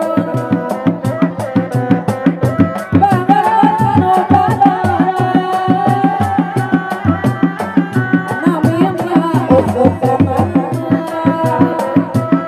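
Sundanese reak ensemble music: dogdog drums beaten in a fast, driving interlocking rhythm, with a wavering high melody line above.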